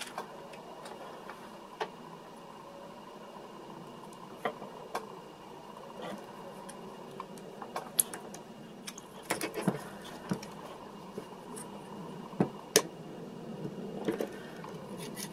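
Scattered light clicks and taps of small plastic toy parts being handled: a toy car's plastic motor-and-gearbox chassis turned and worked in the hands, over a faint steady room hum. The clicks come singly and in small clusters, the sharpest a little past the middle.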